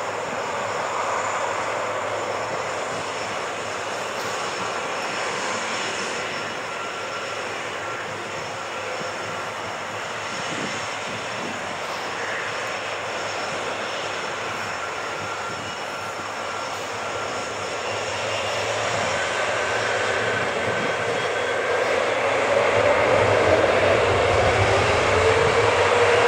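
Boeing 777-200ER's twin GE90 jet engines running at low thrust, a steady noise. In the last few seconds a rising whine comes in and the sound grows louder as the engines spool up for the takeoff roll.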